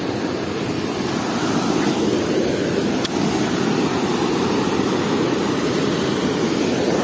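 Steady rushing of water pouring through the sluice gates of a river weir, an even noise that holds at a constant level.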